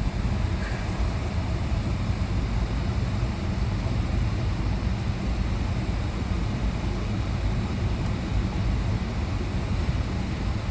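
Vehicle driving along: steady engine and road rumble.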